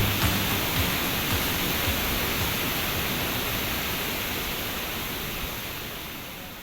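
Waterfall, the steady rush of falling water, slowly fading out near the end.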